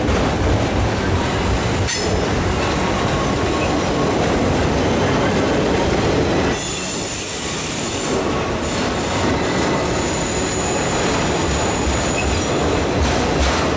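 Autorack freight cars rolling past: a steady rumble of steel wheels on rail with a high-pitched squeal and hiss from the wheels. A few clicks come as the wheelsets cross rail joints.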